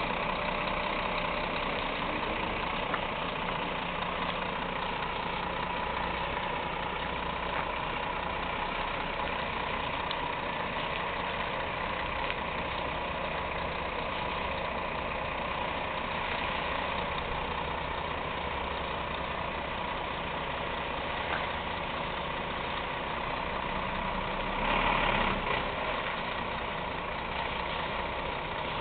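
Renault Premium truck's diesel engine idling steadily, with one brief louder burst of sound near the end.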